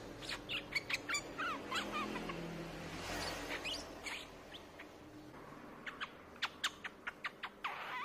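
Streak-eared bulbul calling: a string of short, sharp chirps and slurred notes, then a quick run of separate downward-sweeping notes in the last couple of seconds.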